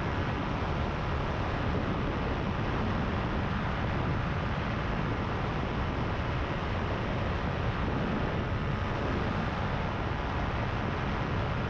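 Power2Fly paramotor's engine and repaired propeller running steadily in cruising flight, a constant drone with no change in pitch or level.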